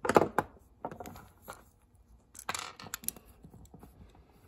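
Metal clicks and scrapes from a Suntour Cyclone Mk II bicycle rear derailleur being handled and worked with an Allen key. They come as a handful of separate sharp taps, the loudest right at the start and a cluster about two and a half seconds in.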